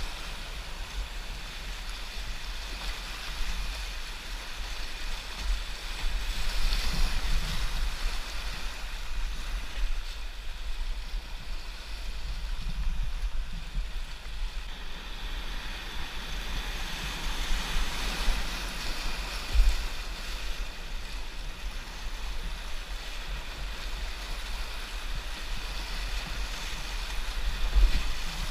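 Whitewater rapids rushing and splashing around a kayak, heard from a camera mounted on the boat, with a low buffeting rumble on the microphone. The water swells louder through the rougher stretches, and there is a sharp splash near the end as the bow drops into a breaking wave.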